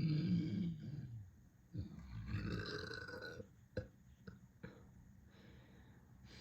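Two long, deep burps, the first right at the start and the second about two seconds in, from a stomach upset by eating too much. A few short clicks follow.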